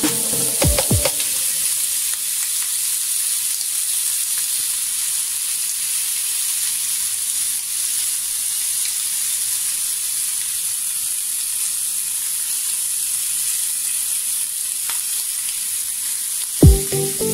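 Lamb chops sizzling steadily on a hot ridged grill pan, a continuous even hiss. Background music plays over the first second and comes back near the end.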